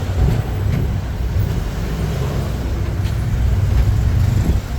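Steady low rumble of a ride on an open-backed songthaew (baht bus) in city traffic: engine and road noise.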